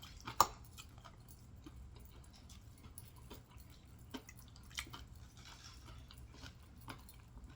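Close-miked chewing of fried fish: soft wet mouth clicks and smacks scattered through, with one sharper click about half a second in, over a faint low hum.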